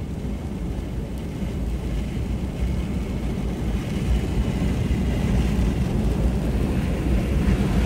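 Steady road noise inside a moving vehicle: a low rumble of tyres and engine at highway speed, growing slightly louder.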